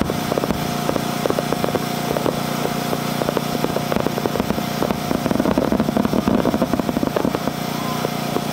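Fireworks going off as a rapid string of sharp pops and bangs, growing denser and louder about five seconds in, over a steady droning hum.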